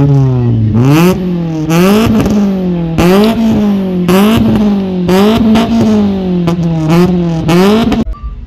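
A car engine being revved hard again and again, about eight quick blips roughly a second apart, each rising fast and dropping back, with a sharp crack at the top of most revs. It cuts off abruptly just before the end.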